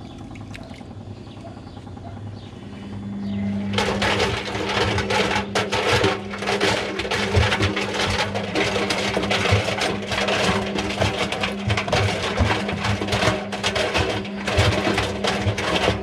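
Front-loading washing machine starting up: a steady motor hum comes in, then from about four seconds in the turning drum tumbles rubber balloons against the stainless steel, a dense, irregular clatter of knocks and rubbing that carries on to the end.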